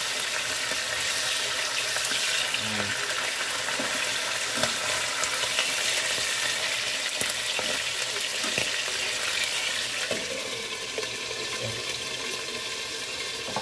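Tuna pieces frying in hot oil in a pan, a steady spattering sizzle, with a few short knocks as the pieces are turned with tongs. The sizzle drops a little about ten seconds in as the pan is covered with a glass lid.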